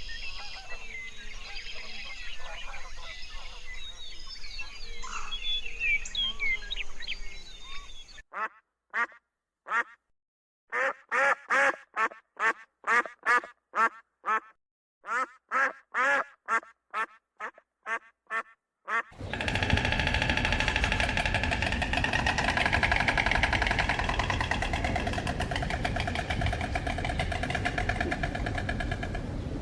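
Outdoor background with small bird chirps, then a duck quacking in quick runs of calls, with short silences between the runs, for about ten seconds. After that comes a loud, continuous, dense sound.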